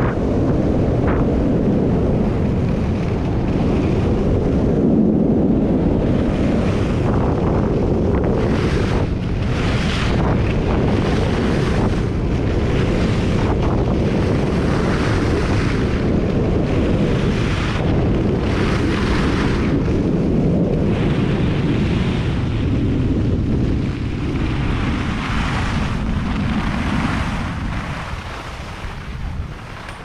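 Wind buffeting a skier's camera microphone during a fast run down groomed corduroy, with the hiss of skis carving firm snow in repeated turns. It quietens near the end as the skier slows to a stop.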